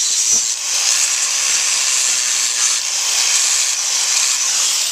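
Electric grinder with a sandpaper flap disc grinding down a horse's hoof: a steady, loud, high hiss of the disc on hoof horn over a faint motor hum.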